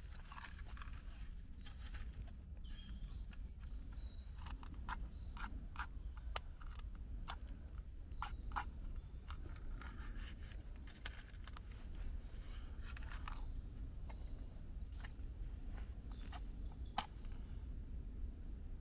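Dry twigs and forest litter crunching and snapping as they are handled, in scattered sharp cracks with about a dozen louder snaps, over a low steady rumble.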